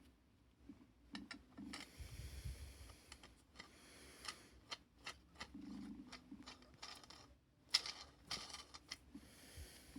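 Quiet hand-tool work at the bench: irregular small clicks, taps and short scrapes, the sharpest click coming near the end.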